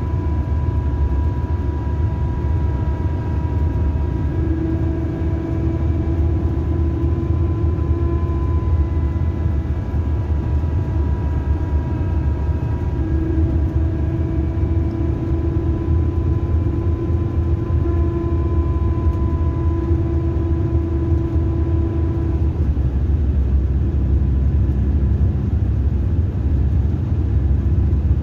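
Cabin sound of a Mercedes-Benz 2442 coach under way: a steady low rumble of engine and road, with a whine of several stacked tones over it that stops some twenty seconds in.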